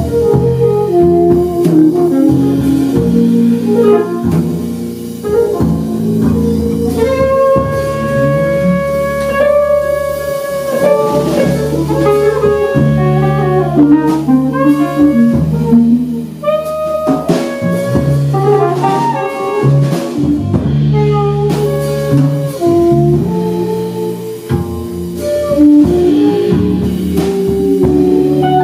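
A jazz quartet playing live: saxophone lines with some long held notes, over double bass, keyboard and drum kit.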